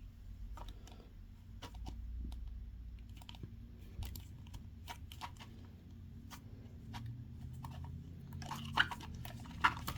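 Plastic doll packaging and parts being handled: scattered small clicks and crinkles, getting busier and louder in the last second and a half with a couple of sharper clicks.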